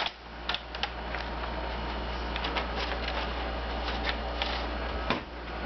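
A sheet of paper crackling and rustling in a series of short, irregular crackles as a cat noses and paws under it, over a steady low hum.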